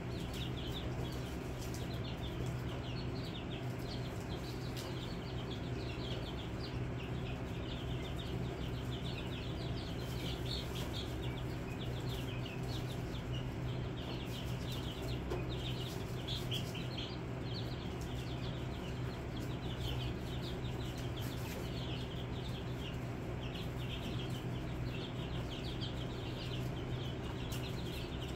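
A flock of young chicks peeping: many short, high peeps overlapping without a break, over a steady low hum.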